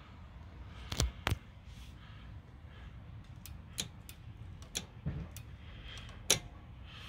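Sharp, irregular clicks and taps of hard parts being handled, about nine in all, with the loudest about a second in and near the end. No engine is running.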